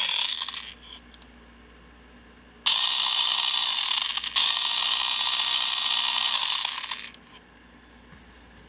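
Small electric motor of a FinaMill battery-operated pepper mill running with no pod fitted, a steady high-pitched whir; it cuts off just under a second in, then starts again a couple of seconds later and runs for about four seconds. It runs only while the tab safety switch is held pushed in.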